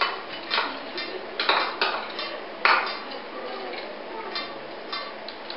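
A metal spoon scraping and clinking against a serving bowl and a stainless steel roaster pot as green peas are spooned in: a string of irregular clinks and scrapes, the loudest about two and a half seconds in.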